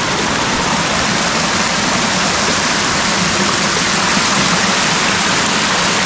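Rainy-season forest stream rushing down the hillside: a steady, loud flow of water.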